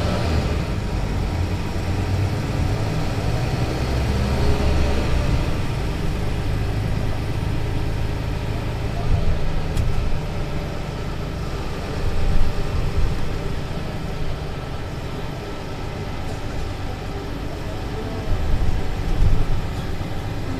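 Mercedes-Benz Citaro C2 LE city bus's Euro 6 diesel engine and Voith automatic gearbox running as the bus drives, heard from inside the passenger cabin, with a few louder swells along the way.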